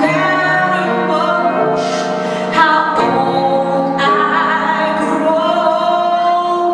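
A slow ballad performed live, with a woman singing sustained notes over instrumental accompaniment.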